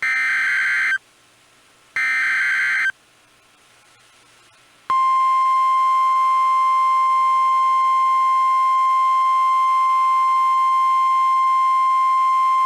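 NOAA Weather Radio alert: the last two of the three SAME digital header bursts, buzzy data bursts about a second long each, two seconds apart. After a pause of about two seconds comes the steady 1050 Hz warning alarm tone, which signals that a tornado warning is about to be read.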